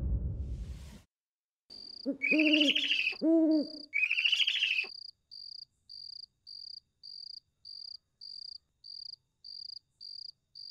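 Night-time sound effect: an owl hooting a few times, with crickets chirping steadily about twice a second. A whoosh from the title transition fades out in the first second.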